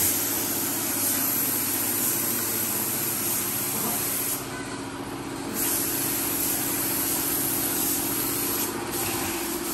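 Compressed-air spray gun hissing steadily as it sprays wood finish, with an air compressor running underneath as a steady hum. The spray stops for about a second midway, then starts again.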